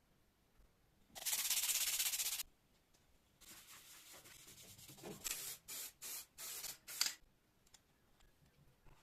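Restoration work on an old rusty bike pump. About a second in there is a loud hiss lasting just over a second, then a quieter steady noise, then a run of five or six short hissing bursts.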